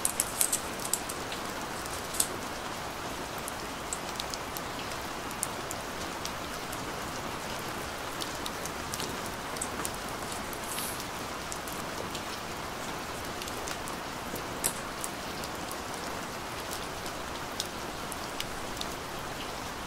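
Light clicks and crinkles of clear plastic film being peeled off an Apple Pencil and of its plastic packaging tray being handled, densest in the first couple of seconds. Under them runs a steady, even, rain-like hiss.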